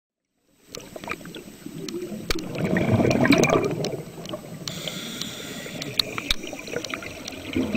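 Underwater bubbling and gurgling, with scattered sharp bubble pops, swelling to its loudest about three seconds in and then easing to a steadier, lower wash.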